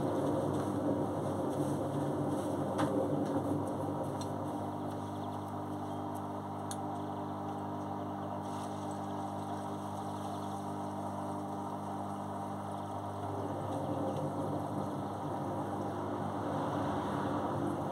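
Beko front-loading washing machine tumbling a wash: the drum motor hums steadily as the drum turns the wet laundry, with a few light clicks in the first seconds. The hum eases off about thirteen seconds in, then picks up again.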